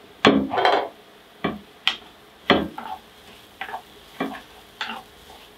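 Wooden spatula scraping and knocking against a nonstick pan as mushrooms and onions in butter are stirred, a series of short, irregular strokes over a low sizzle.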